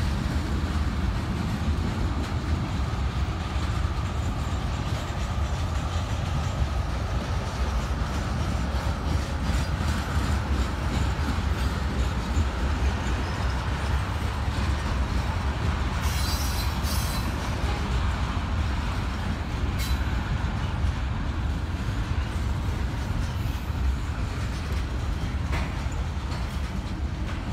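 Freight cars of a Norfolk Southern train rolling past: a steady low rumble and rattle of steel wheels on the rails, with brief high wheel squeals about two-thirds of the way through.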